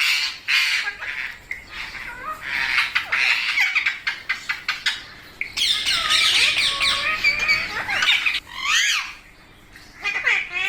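Several rose-ringed parakeets (Indian ringneck parrots) squawking and chattering, with many rapid overlapping calls and a brief lull near the end.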